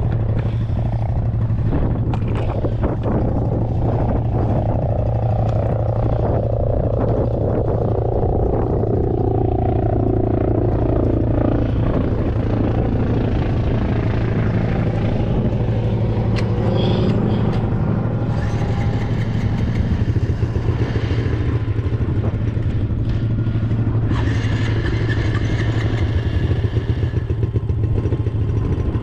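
Dirt bike engine running at a fairly steady note while riding along a sandy dirt track, heard from on board the bike. A hiss rises over it twice in the second half.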